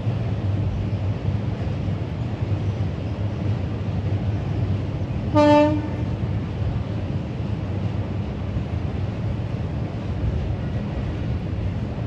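Steady low rumble with one short horn blast, about half a second long, a little past the middle.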